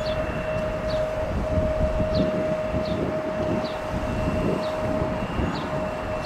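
Distant jet airliner on approach, taken to be the Icelandair Boeing 737 MAX 9: a steady held engine tone over a low rumble. Short high chirps repeat about every half second on top.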